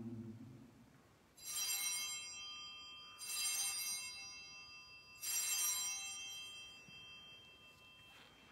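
Altar bells rung three times, about two seconds apart, as the host is elevated at the consecration. Each ring is a cluster of high bell tones that fades away before the next.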